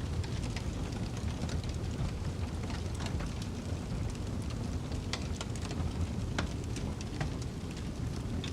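Wood fire in a fireplace crackling, with irregular sharp pops scattered through, over a steady low rumble of snowstorm wind.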